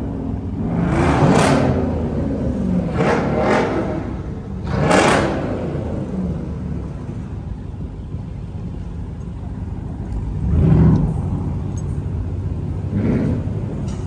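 Car engines rumbling steadily, with cars revving or passing by about six times, each swelling up and fading away.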